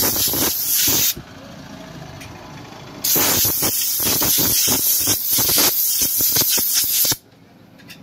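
Compressed-air blow gun hissing as it blows dust out of a Honda Shine motorcycle's pleated paper air filter element from its underside, the clean side. The blast stops about a second in, and a second, longer blast runs from about three seconds in to about seven seconds, then cuts off sharply.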